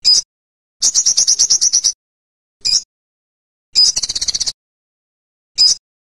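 Olive-backed sunbird calling in high, sharp notes. Single short notes come at the start, about two and a half seconds in and near the end, and two quick rapid trills come about a second in and about four seconds in.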